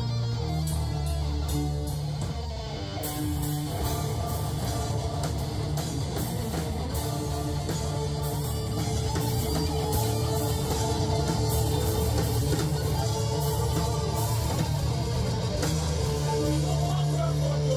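Live heavy metal band playing: electric guitars and bass over a drum kit, with the drums and cymbals coming in hard about three seconds in.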